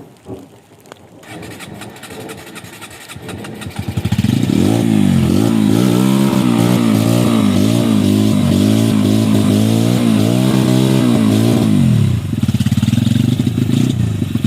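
Big trail motorcycle engine, quiet at first, then from about four seconds in revved hard over and over, its pitch rising and falling in quick swells, as the bike is driven to get free of mud it is stuck in; near the end it settles to a lower, steadier run.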